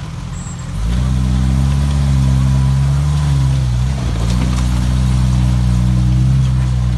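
Jeep's engine revving up under throttle about a second in as it is driven over a rough spot off-road, easing off briefly near the middle and then pulling again.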